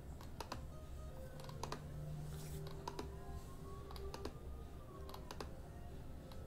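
Light, irregular clicking at a computer keyboard and mouse, about two or three clicks a second, while a list is randomized. Faint music plays underneath.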